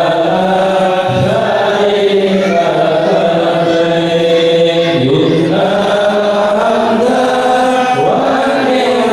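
A group of men chanting an Islamic devotional chant together in unison, one voice on a microphone, with long held notes that shift pitch about every second.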